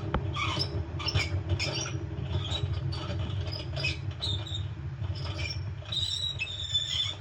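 Worn drum bearings of an LG washing machine grinding and squeaking as the drum is turned, a steady rumble with irregular high squeaks on top: the bearings have failed, which the repairer puts down to a failed inner tub seal.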